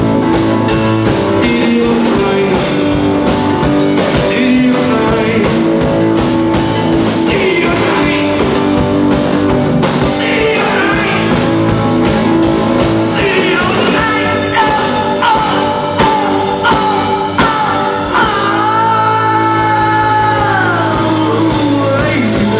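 Rock band playing live with a singer over guitar and drums. Near the end a long held note slides down in pitch.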